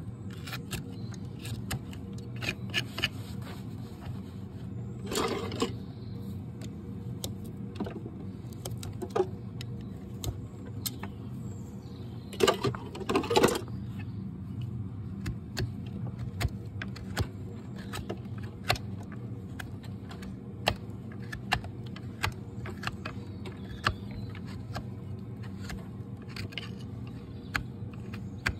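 Farrier's hoof knife scraping and paring the sole of a Shire horse's hoof: a steady run of short, sharp scrapes and clicks, with longer, louder scraping strokes about five seconds in and again around thirteen seconds. A steady low hum runs underneath.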